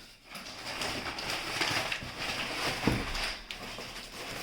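Crackly rustling of the wrapping on a package of books as it is handled and unwrapped, with a single knock about three seconds in.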